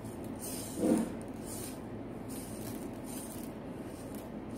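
Sponge rubbed back and forth over a rhinestone-setting board in a plastic tray, about two strokes a second, with the loose rhinestones rattling and rolling under it. The rubbing works the stones into the board's holes and turns upside-down ones over.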